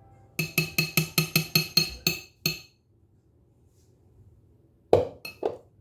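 A spoon clinking rapidly against a bowl, about five ringing strikes a second for two seconds, then three sharper knocks near the end.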